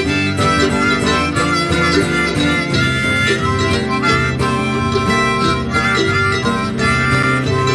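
Harmonica solo, played with the harp cupped in both hands against a microphone, over a strummed guitar accompaniment in a country-blues string-band number.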